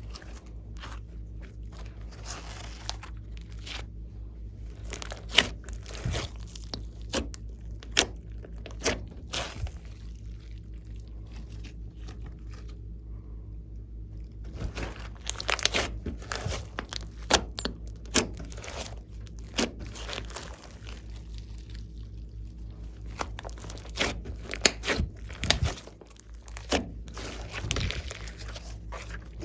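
Glossy slime being squeezed, stretched and folded by hand, giving off sticky clicks and pops at irregular intervals, with a quieter lull in the middle and busier runs of popping after it.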